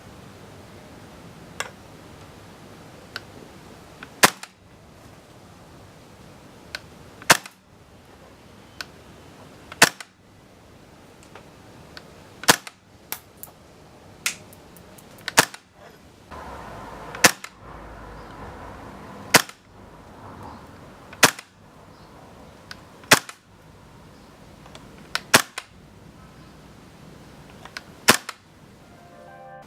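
KWA Kriss Vector gas blowback airsoft gun fired one shot at a time, a sharp crack every two to three seconds, about a dozen shots in all.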